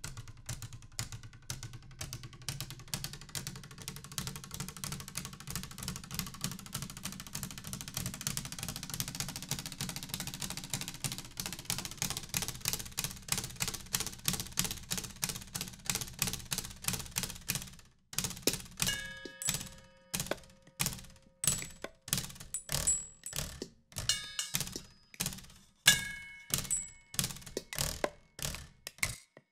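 Improvised percussion on everyday household objects: a fast, even run of taps and knocks, about three or four a second, over a low hum. About eighteen seconds in the hum drops away and the strikes become sparser and sharper, some leaving short ringing tones.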